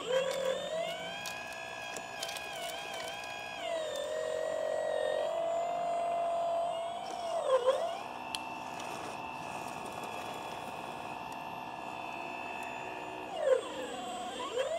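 Electric motors of a scratch-built 1/10-scale RC Volvo EC300D excavator whining as it swings and digs, the pitch shifting with each movement. Twice the whine dips sharply in pitch and comes back. A few light clicks come in the first few seconds.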